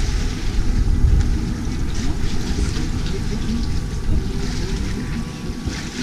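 Wind buffeting the microphone aboard a sailboat under way, over the rush of the sea.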